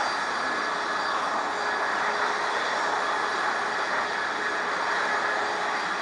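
Jet airliner engines running at the airport, a steady rushing noise with a few faint steady tones in it.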